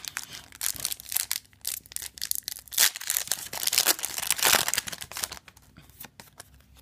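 Foil wrapper of a Yu-Gi-Oh! booster pack being crinkled and torn open by hand: a run of crackling rustles and tears, loudest past the middle, fading to quiet handling of the cards near the end.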